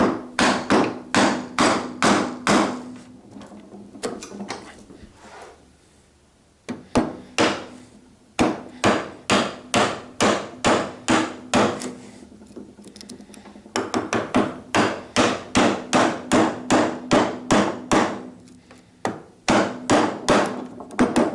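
Mallet striking a chisel to chop a mortise in wood: runs of sharp, firm hits about three a second, broken by short pauses.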